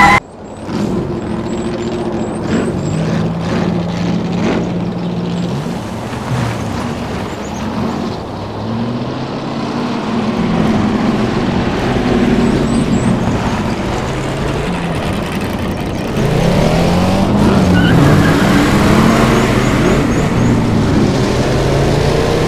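Car engines running and revving, the pitch rising and falling again and again, louder and busier for the last several seconds.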